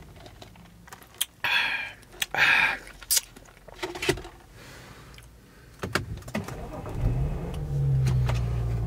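Plastic iced-drink cup set into a car's cup holder: ice rattling and plastic clicking in short bursts over the first few seconds. About seven seconds in, the car's engine starts, its note rising briefly and then settling into a steady idle.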